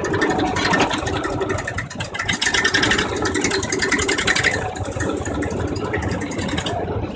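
Massey Ferguson 35 tractor's three-cylinder diesel engine running steadily, with a fast, even beat of firing strokes.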